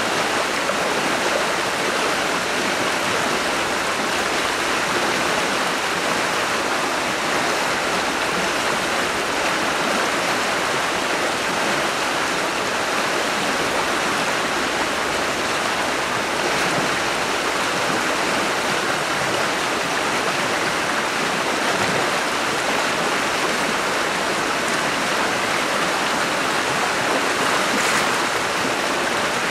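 Fast, shallow stream rushing and churning over its bed, a steady, even rush of water.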